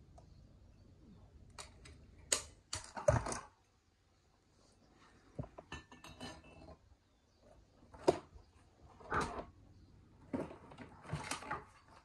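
Chrome basin waste fitting being handled and seated in a ceramic basin's waste hole: scattered metal clinks and knocks against the ceramic, in several short clusters, the loudest about three seconds in.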